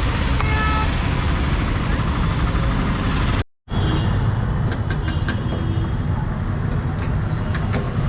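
Steady road traffic rumble with a short vehicle horn toot near the start. After a brief dropout a little past the middle, a scatter of light clinks and ticks sounds over the traffic.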